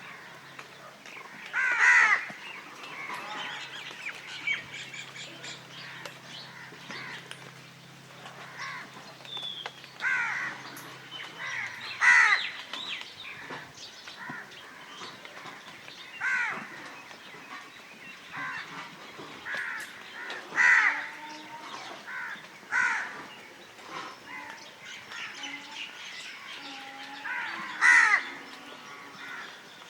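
Crows cawing repeatedly, harsh calls every few seconds, some louder and some fainter, with the loudest about 2, 12, 21 and 28 seconds in.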